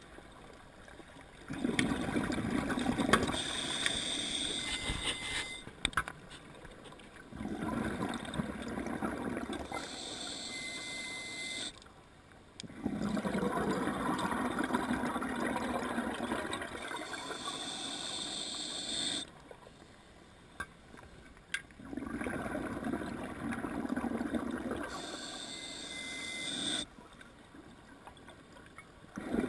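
A scuba diver breathing through a regulator: four long breaths in a slow cycle, each a rush of gurgling exhaled bubbles with some hiss, separated by short quiet pauses.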